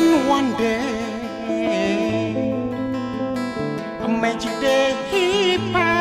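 Instrumental passage with an electric guitar playing a lead line of bent, wavering notes over strummed acoustic guitar and low held bass notes.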